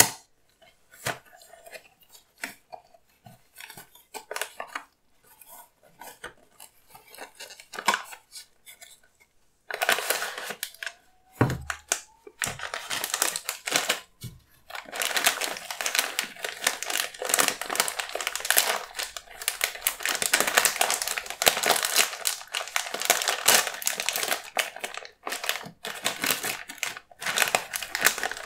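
Cardboard cereal box opened by hand, with scattered light clicks and rustles. About ten seconds in, a foil cereal bag starts crinkling loudly and continuously as it is handled and torn open, with one dull thump just after the crinkling begins.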